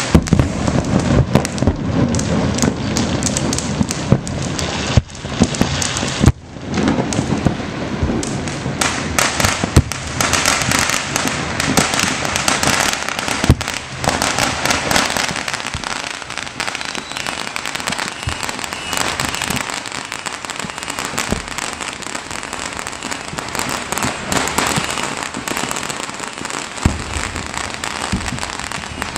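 Many fireworks and firecrackers going off across the city at once: a dense, unbroken crackle of overlapping pops and bangs, with a few sharper, louder bangs standing out in the first half.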